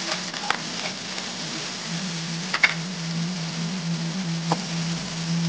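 Tomatoes, garlic and onion sizzling steadily in hot oil in a metal wok, with a few sharp clicks of a metal spatula against the pan, the loudest about halfway through.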